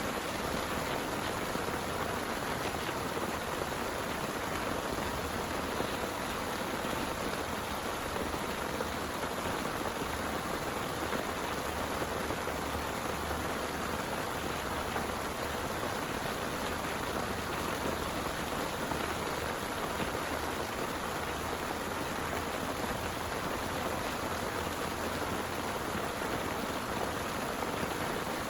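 Heavy rain pouring steadily, an even hiss of falling drops with no break or change.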